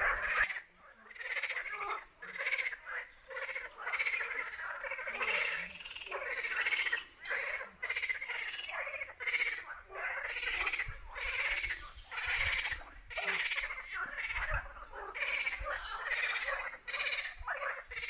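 A chorus of frogs croaking, many fast-pulsed calls overlapping in a continuous run with only brief lulls.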